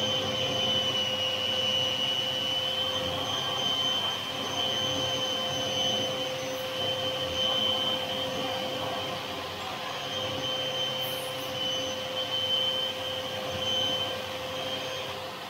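Shop dust-extraction vacuum running through its hose, a steady motor hum with a high, slightly wavering whistle over it.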